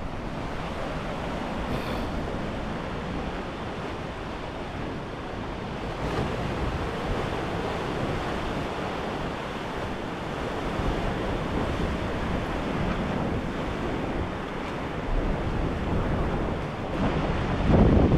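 Ocean surf breaking and washing against the shore in a steady rush, with wind buffeting the microphone. The wind buffeting grows louder near the end.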